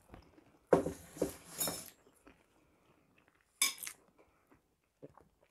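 Fork and plates clattering against each other on the table: a clatter with a ringing clink about a second in, then one more sharp clink of metal on china a few seconds later.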